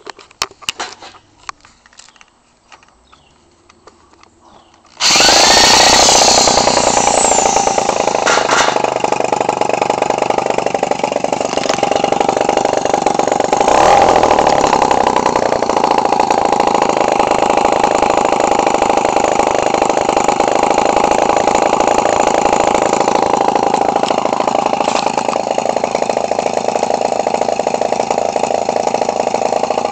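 Echo 20cc two-stroke trimmer engine, converted for a model airplane and turning a 16x6 propeller, running loud with the side of its muffler opened up. A few light clicks and knocks come first; the engine comes in suddenly about five seconds in, rises in pitch at first, then runs steadily at high speed.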